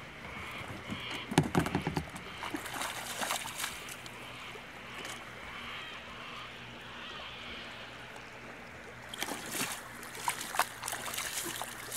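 Feet wading in shallow river water beside a kayak, the water sloshing around the legs and hull. There are splashes and knocks about a second and a half in, and again from about nine seconds in as the kayak is pulled through the water.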